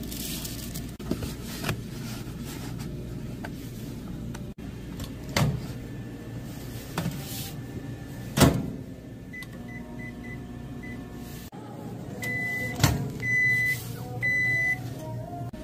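Microwave oven in use: knocks from the door opening and closing, the loudest about eight seconds in, a few short beeps from keypad presses, then three long beeps near the end signalling that the heating cycle is done. A steady low hum runs underneath.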